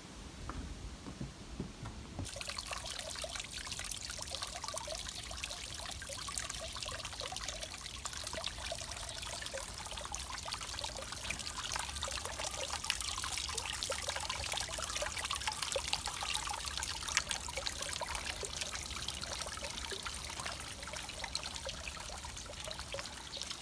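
Thin stream of water falling from a rock into a stone basin, trickling and splashing steadily. It starts suddenly about two seconds in.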